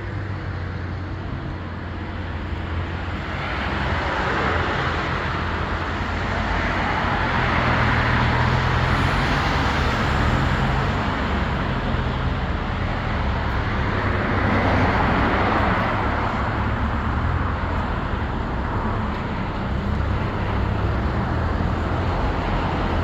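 A vehicle driving on a road: a steady low engine hum under tyre and road noise that swells and eases a few times.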